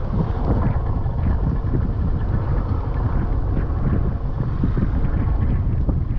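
Steady low rumble and buffeting of wind on the microphone aboard a small fishing boat at sea.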